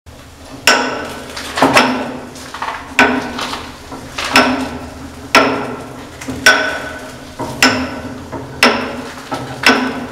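A metal object struck about ten times, roughly once a second, each strike ringing on with a clear pitched tone that dies away before the next.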